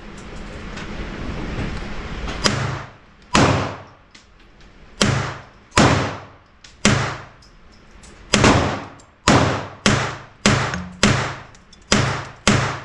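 Gunshots at a firing range: about a dozen single shots starting a couple of seconds in, each with a short echo, coming faster toward the end, in the manner of a quick magazine dump.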